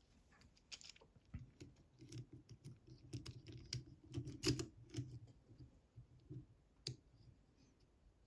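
Irregular small metallic clicks and taps of a brass-tipped disk detainer pick in the keyway of an Abloy Classic-style padlock, working its discs, with the loudest click about four and a half seconds in and a sharp single click near the end.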